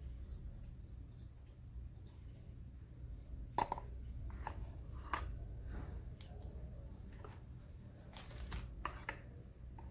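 Packaging being handled during a smartwatch unboxing: scattered light clicks and rustles, with sharper clicks about three and a half and five seconds in and a few more near the end, over a low steady hum.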